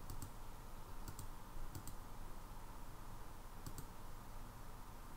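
Computer mouse button clicking: a few quick press-and-release clicks at irregular intervals, over a faint low hum.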